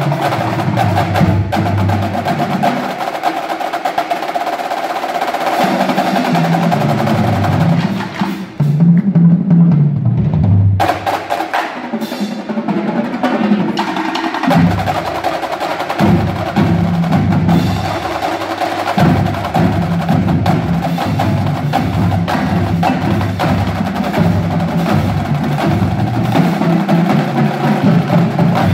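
A marching drumline playing a cadence on snare drums, tenor drums and a line of tuned bass drums, with dense, fast strokes throughout. About eight seconds in, the snares and tenors drop out for a few seconds. The bass drums play a run of notes stepping up and down alone, then the full line comes back in.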